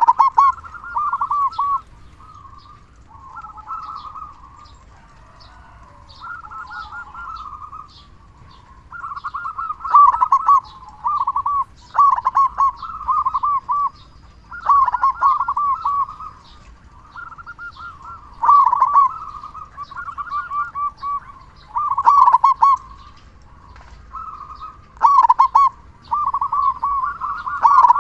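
Zebra dove (perkutut) cooing: repeated phrases of quick staccato coos, a loud phrase every two to three seconds with softer cooing in between.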